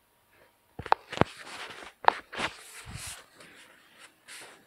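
Handling noise from a phone: sharp knocks and rustling right at the microphone as the phone is lowered and rubs against hand and clothing, loudest about a second in and again about two seconds in.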